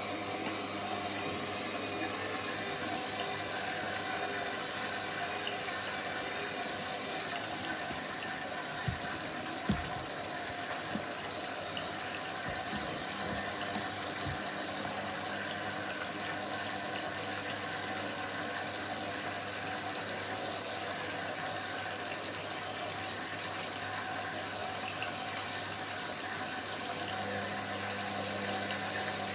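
Washing machine running, with a steady motor hum over rushing water. A few light knocks come about ten seconds in.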